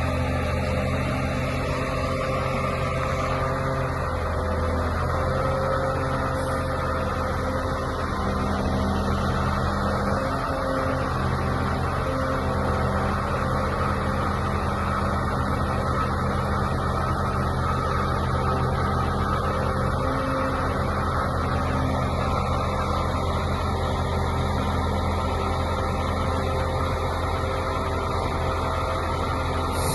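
Diesel engine of a Mercedes-Benz Actros 3241 8x4 concrete pump truck running at a steady speed.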